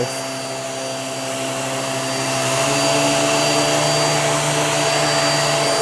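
Hoover React QuickLift upright vacuum cleaner running on a heavily soiled carpet, a steady motor whine with a deeper hum that shifts slightly about halfway through as it is pushed over the rug.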